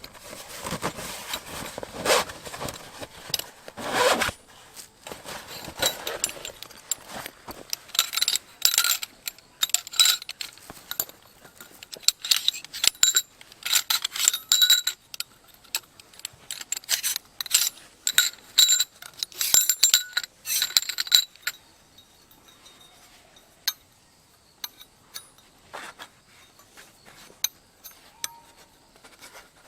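Metal camping gear being handled: a run of light metallic clinks and rattles, each with a short ring, thinning out in the last third.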